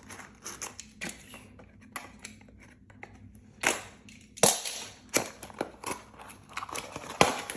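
Packaging being handled and opened by hand: a run of sharp clicks, snaps and light rustling, with a few louder snaps in the middle and near the end.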